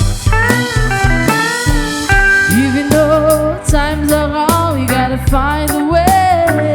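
Reggae band music: a lead electric guitar plays a melody with bends and vibrato over a deep, steady bass line and drums.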